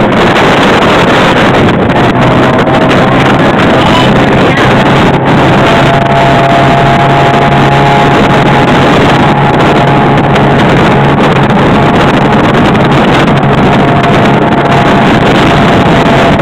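Motorboat under way on open water: a steady engine hum beneath a loud rush of wind and water.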